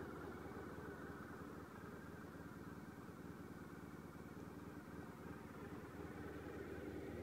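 Honda VFR400R NC30's 400 cc V4 engine idling steadily, with no revving.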